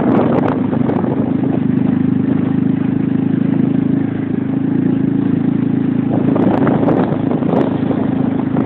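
Zenith motorcycle's engine running at a steady pitch, with a brief dip in level about four seconds in.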